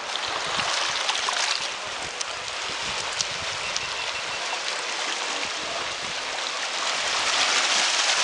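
Small sea waves lapping and washing over pebbles and rocks at the water's edge: a steady fizzing wash that swells a little near the end.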